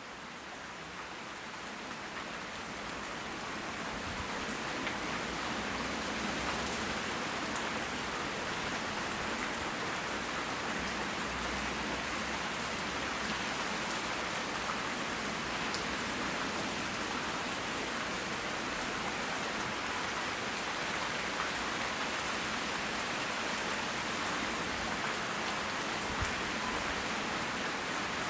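Steady rain falling and pattering on surfaces, with scattered individual drop hits; it fades in over the first few seconds.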